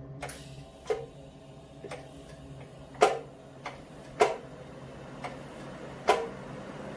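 Irregular sharp clicks and light knocks, about eight over several seconds, some with a brief ring, from objects being handled, over a low steady hum.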